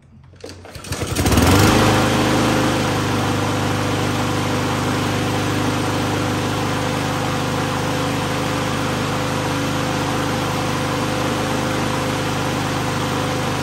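Troy-Bilt TB240 push mower's Honda GCV160 single-cylinder engine pull-started, catching about a second in and then running steadily. It runs smoothly, with no vibration from its new, unbent blade.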